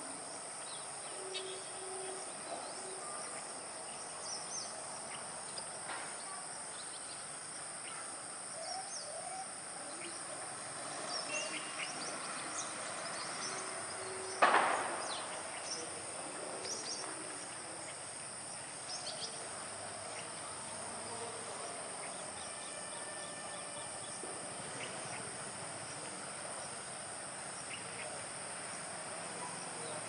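Outdoor ambience: a steady high-pitched insect drone, like crickets, with scattered short bird chirps and one sudden sharp knock about halfway through.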